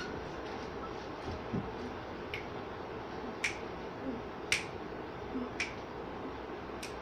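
Finger snaps over a steady hiss, five sharp snaps spaced about a second apart from about two seconds in.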